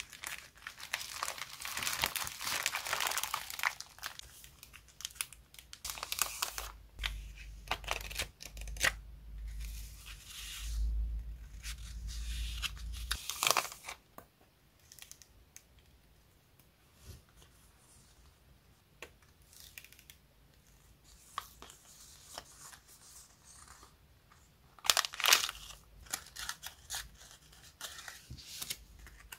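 Clear cellophane stationery packaging crinkling and being torn open, then paper pieces rustling and tapping as they are handled: a printed sheet and a stack of lace paper doilies. A sharp flurry of paper handling comes near the end.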